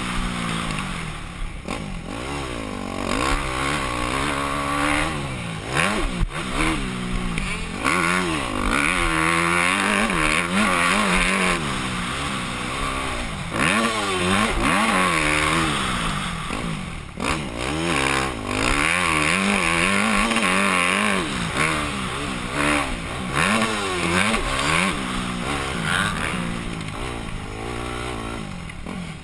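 Yamaha YZ250F four-stroke single-cylinder dirt bike engine revving hard, its pitch climbing and falling over and over as the rider accelerates, shifts and rolls off through the corners, with a few sharp knocks.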